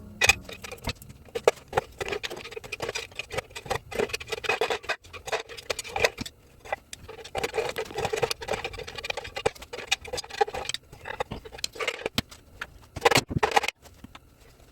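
Hand tools clicking, knocking and scraping on metal parts in irregular quick strokes, with a louder cluster of knocks near the end.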